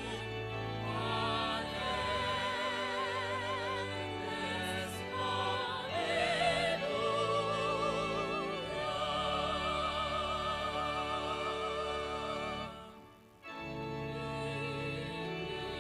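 Church organ accompanying voices singing a hymn, the voices wavering with vibrato over held organ chords. Near the end the music breaks off for a moment between verses, then the organ and singing start the next verse.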